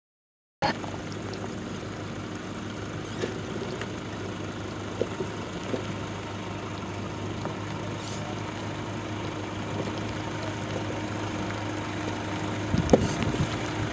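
Off-road 4x4's engine running steadily at low revs as it crawls up a rocky, rutted track, with a few light clicks and a sharper knock near the end. The sound comes in suddenly about half a second in.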